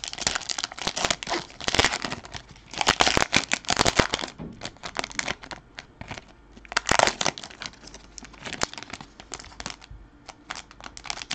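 Foil wrapper of a hockey-card pack being torn open and crinkled by hand, in several crackling bursts with lighter rustles and ticks between them.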